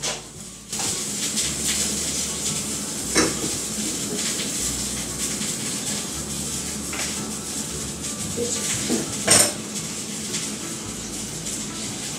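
Dishes and cutlery clinking now and then over a steady hiss, with a sharp clink about three seconds in and a louder one about nine seconds in.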